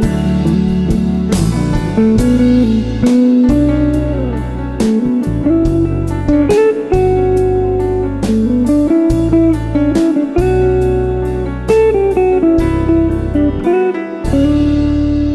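Smooth jazz instrumental: a guitar plays the melody over bass, drums and keyboards. About fourteen seconds in the drums stop and the band holds a final chord that begins to fade.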